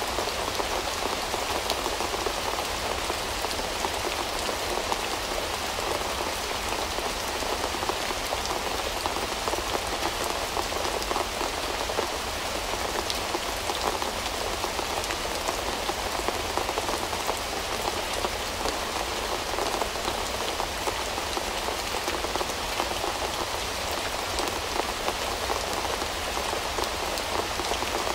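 Steady rain: a dense, even hiss of many small drops.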